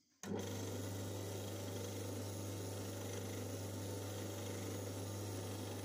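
The Korvet 76 lathe's electric motor, fitted with a 3D-printed cooling impeller, switched on at once to a steady hum with air rush, then cut off about six seconds in and winding down with a falling pitch.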